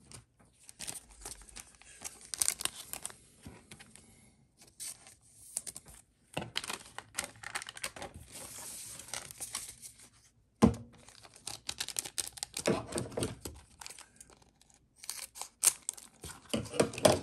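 A MetaZoo Wilderness booster pack wrapper being torn open and crinkled by hand, in irregular bursts of crackling with short pauses. There is one sharp knock about ten and a half seconds in.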